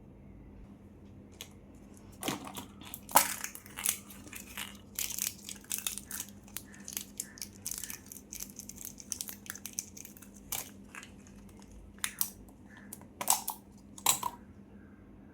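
Plastic candy wrappers being torn open and crinkled by hand: an irregular run of sharp crackles and rustles, densest in the middle, with louder snaps about three seconds in and twice near the end.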